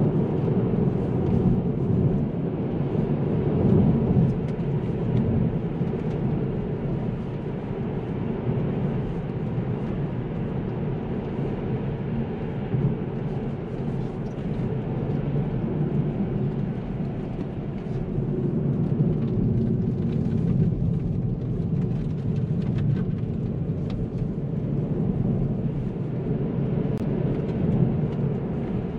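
Kia Ceed SW's 1.5 T-GDI turbocharged four-cylinder petrol engine running under way, mixed with tyre and road rumble, while the car is driven on a road. A steady low rumble that swells slightly now and then.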